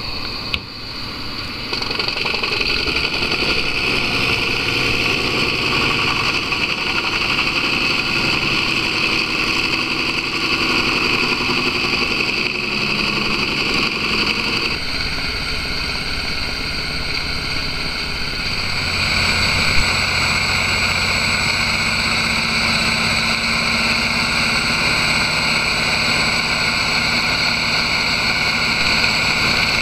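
Bandit Beast 3680 horizontal grinder running steadily under load as it chips logs into wood chips: a constant heavy engine noise with a high whine over it. The sound shifts abruptly about 15 and 19 seconds in.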